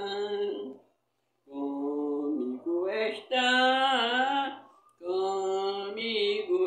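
Elderly woman singing a hymn unaccompanied, in a slow voice with long held notes and a wavering high note midway, pausing briefly about a second in.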